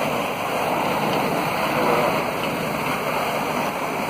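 Steady rushing of a high-pressure water jet from a hydraulic mining hose blasting into a dirt bank.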